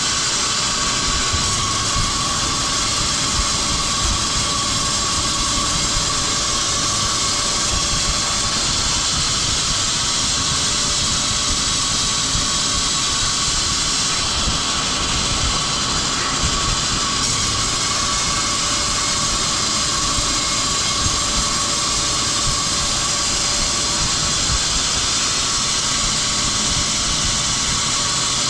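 Woodworking machinery running steadily on pine boards: a constant loud mechanical noise with a steady whine and a strong hiss, unchanging throughout.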